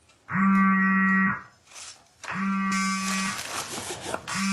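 A low buzzing electronic tone, about a second long, repeating every two seconds, three times, like a call ringing through.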